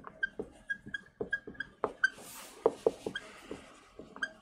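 Dry-erase marker squeaking on a whiteboard as words are written: a quick run of short, high-pitched squeaks and strokes, several a second, with a brief hiss about two seconds in.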